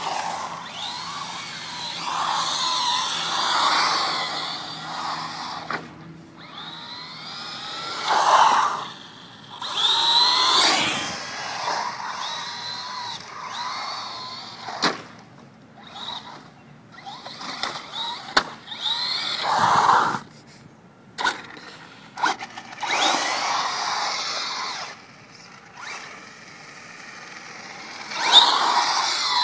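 Electric motor of a Traxxas Rally RC car whining up and down in pitch in repeated spells as it speeds up and slows across asphalt, with a few sharp clicks between.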